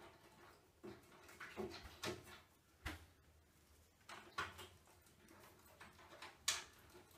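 Faint scattered clicks and rustles of a cable being handled and fastened to the inverter's screw terminal, with a sharper click about six and a half seconds in.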